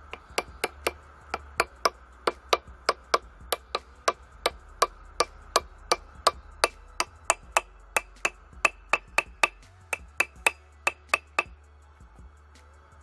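Steel hammer tapping a gear onto its keyed shaft in a 6M12P milling machine's feed gearbox: about thirty quick metal-on-metal taps, roughly three a second, each with a short ring. The taps stop a little before the end.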